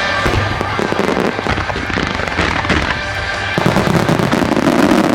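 Starmine fireworks barrage: many quick bursts and crackles in rapid succession over loud music.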